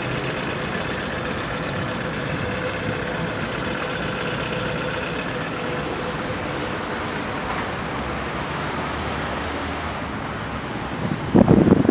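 Steady running noise of a moving vehicle heard from inside it, with a steady whine over the rumble for the first half. Near the end a loud gust of wind buffets the microphone.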